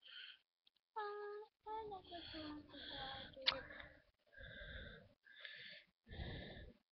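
A high voice in short, broken-up snatches, with noisy breathy bursts between them and a sharp click about three and a half seconds in.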